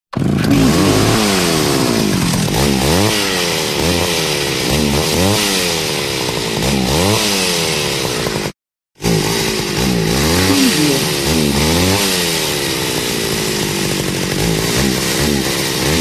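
Chainsaw engine revved again and again, its pitch rising and falling every second or so. It runs as two takes, split by a half-second break about halfway through.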